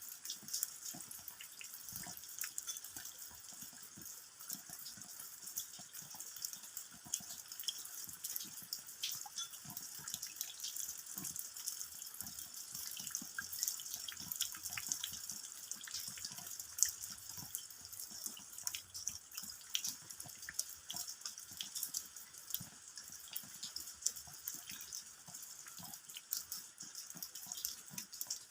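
Rain falling, with dense, irregular drops striking the ground over a steady hiss.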